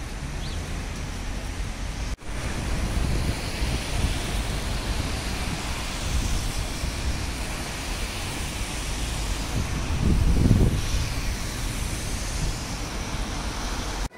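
Outdoor urban background noise: a steady rumble of wind and traffic, with a short dropout about two seconds in and a louder swell about ten seconds in.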